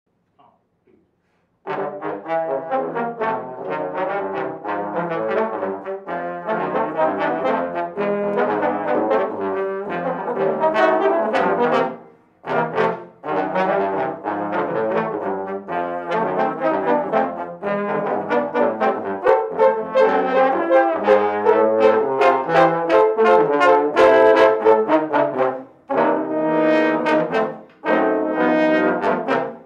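Trombone ensemble playing a jazz tune in harmony, coming in about two seconds in, with brief breaks near the middle and twice near the end.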